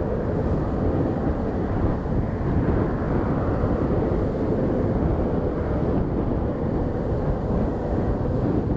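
Jet airliner engines rumbling steadily, with a faint steady tone in the mix and wind buffeting the microphone.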